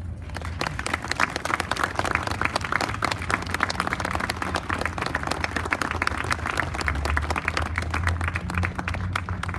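Crowd applauding: many hands clapping, starting just after the beginning and thinning out near the end.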